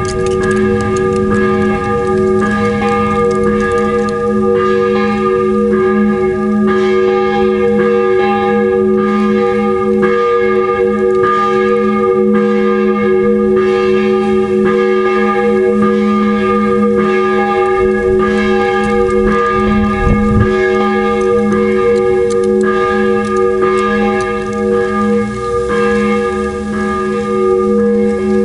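Bronze church bells from a five-bell peal tuned in F, swung full circle (rung 'a distesa'). The clapper strikes roughly once a second, and each stroke's hum and partials ring on beneath the next.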